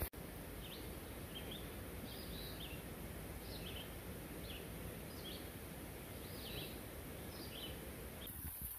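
Steady rain falling through a leafy forest, with a bird repeating short high chirps, about two a second, over the hiss.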